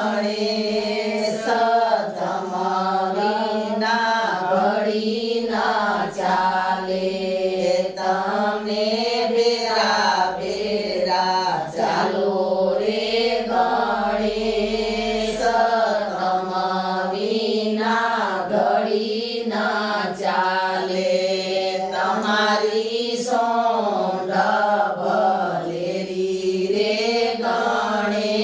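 Group of women singing a traditional Gujarati wedding song together in unison, without instruments, in a steady chant-like melody that moves in short repeating phrases.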